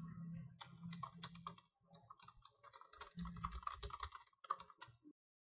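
Faint typing on a computer keyboard: two quick runs of keystrokes with a short pause between them. The typing stops about five seconds in.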